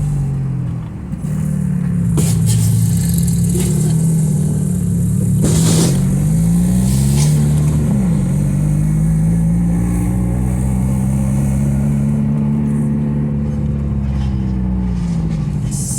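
Car engine running under way, its pitch rising and falling with speed changes, with a few short harsh scraping bursts over it.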